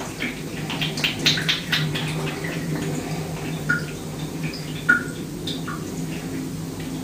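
Light water sounds in a full bathtub: a run of quick soft splashes in the first couple of seconds, then a few scattered drip-like plinks, over a steady low hum.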